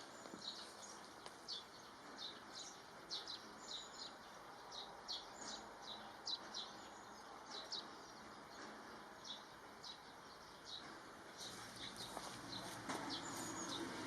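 Small birds chirping faintly, short quick chirps several times a second, over a soft steady hiss.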